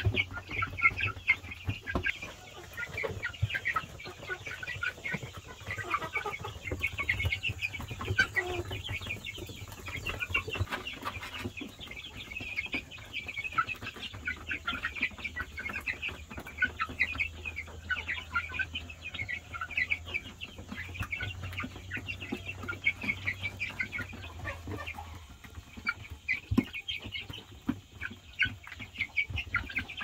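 A flock of young chickens calling as they peck at scattered grain: many short, high chirps overlapping without a break, with the light taps of beaks on the floor.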